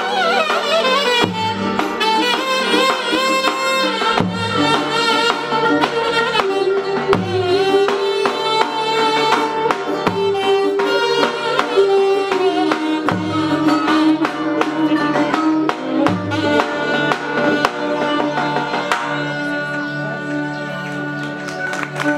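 A small live Turkish band playing: a saxophone leads an ornamented melody with bending notes, over an arranger keyboard's bass and drum beat, with a violin in the band.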